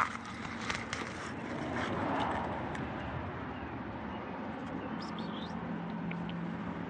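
A steady low engine hum runs throughout, with brief rustling in the first second and a few faint high chirps about five seconds in.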